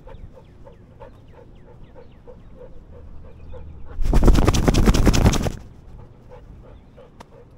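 Siberian husky panting close to the head-mounted camera, about three breaths a second. About four seconds in, a loud rapid rattle lasts about a second and a half as the dog shakes its head.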